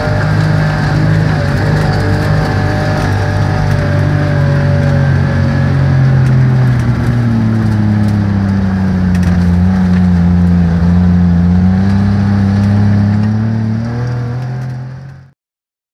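DKW Munga's three-cylinder two-stroke engine running as the vehicle drives along a sandy track, heard from the driver's seat. The engine note dips about halfway through and climbs again, then the sound fades out near the end.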